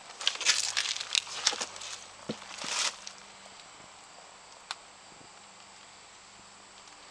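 Footsteps crunching on dry leaves, twigs and gravel: a run of crackling crunches for the first few seconds, then quiet with a single click.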